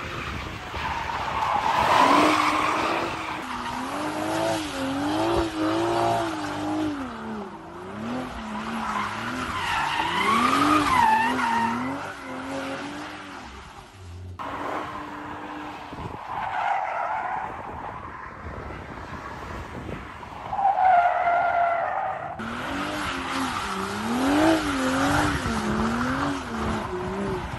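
2023 Nissan Z and Toyota Supra MK5 drifting: engine revs swing up and down rapidly with the throttle while the tyres squeal in long, wavering tones. The sound shifts abruptly several times, about 3, 14 and 22 seconds in, as separate clips are cut together.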